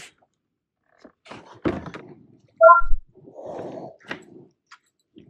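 Fishing gear knocking against a kayak: a few scattered knocks, then one heavy thunk a little under three seconds in that rings briefly.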